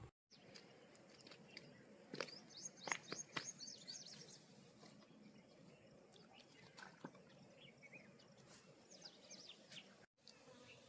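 Small birds chirping faintly outdoors, in quick high twitters about two to three and a half seconds in and again near the end, with a few sharp clicks among the first group.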